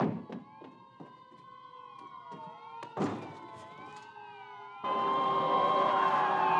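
Several police car sirens wailing together, their pitches rising and falling across one another. They are faint at first, with a sharp thud at the start and another about three seconds in, then become suddenly much louder near the end.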